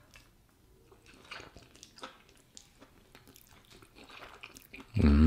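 A person chewing a mouthful of spaghetti carbonara: faint, soft mouth clicks and wet chewing noises. Near the end a man's voice sounds briefly and loudly.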